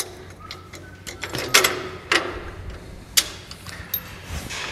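Metal clicks and clanks of a steel jockey-wheel clamp and bracket being handled and fitted onto a bolt, with three louder knocks about one and a half, two and three seconds in.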